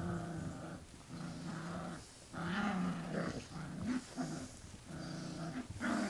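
Brittany spaniel puppy growling in play while it mauls a plush teddy bear: a run of short, low growls, about one a second.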